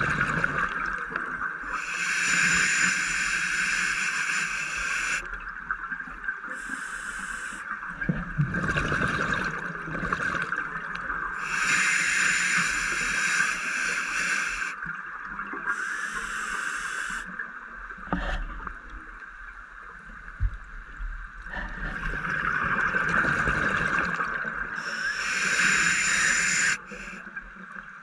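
Scuba diver breathing through a regulator underwater: long bursts of exhaled bubbles about every ten seconds, with shorter, softer bursts between them, over a steady underwater hiss.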